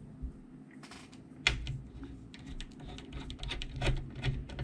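Screwdriver turning a screw into the radio's metal chassis: a run of small, irregular clicks and scrapes, loudest about a second and a half in and again near the end.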